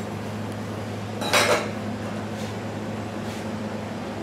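A steel knife clatters against a stainless steel work table in a brief double knock about a second and a half in, over a steady mechanical hum.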